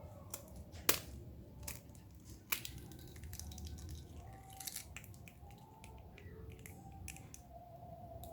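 Scattered light knocks and clinks of a cooking pot and utensils being handled, the sharpest about one and two and a half seconds in, as the hot water is taken off the boiled yam.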